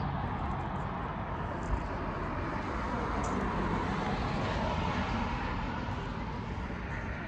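Steady road noise of a car driving, a low rumble with an even hiss, with a brief tick about two seconds in.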